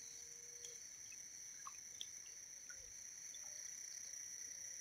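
Faint chorus of crickets and other insects: a steady high trill held at several pitches, with scattered short chirps and ticks.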